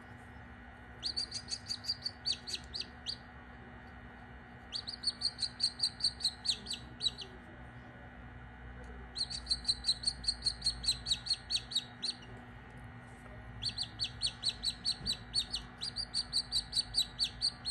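Australorp chick peeping: four bouts of rapid, high, falling chirps, each lasting about two seconds, over a faint steady hum.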